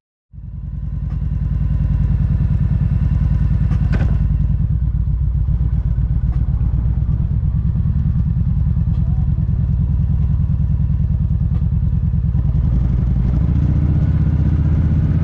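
Kawasaki Vulcan 1700 Vaquero's V-twin engine running at low road speed, a steady pulsing rumble heard from the bike itself, picking up slightly near the end. A single click about four seconds in.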